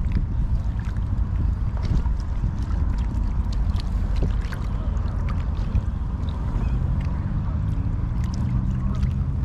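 Wind rumbling on the microphone, with small waves lapping against the rocky shore and a few light clicks.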